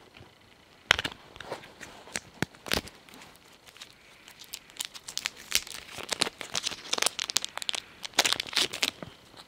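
Packaging being handled and torn open: an irregular run of sharp crinkles, clicks and tearing, growing denser in the second half and stopping just before the end.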